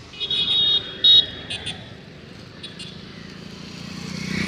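Vehicle horns honking over the wash of wet-road traffic: a longer high-pitched honk, a short louder one about a second in, then two quick double beeps. A low engine sound swells near the end.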